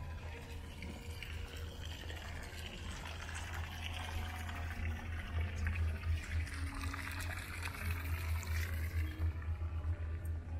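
Water from a plaza fountain splashing into its basin, a steady rushing splash that swells and fades.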